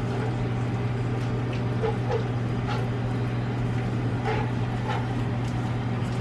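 A steady low hum throughout, with a few faint light clicks and clinks scattered through it, typical of kitchen utensils against a pot.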